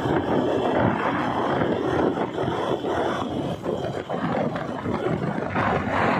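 Wind rushing over the microphone of a Suzuki Access 125 scooter accelerating at highway speed, from about 58 to 74 km/h, with the scooter's running mixed into the rush.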